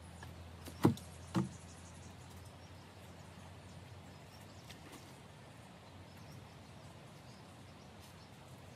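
Two sharp thumps about half a second apart, then a faint steady background.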